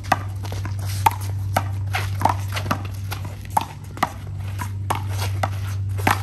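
A handball rally: the small rubber ball slapped by players' hands and smacking off the wall, about a dozen sharp irregular slaps half a second to a second apart.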